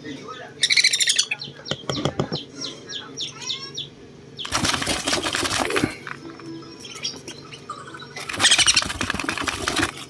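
Sun conure chick being hand-fed, giving rapid, raspy food-begging calls in bursts: a short one about a second in, then longer harsh bursts of a second or more around the middle and near the end.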